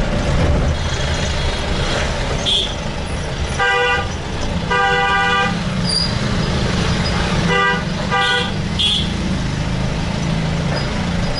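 Vehicle horns honking in road traffic: a short honk, a longer one about a second later, then two quick honks, over steady engine and road noise.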